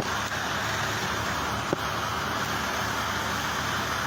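A click, then the battery knapsack sprayer's electric pump motor running with a steady whirring hiss, switched on to test whether it works; a second short click about two seconds in.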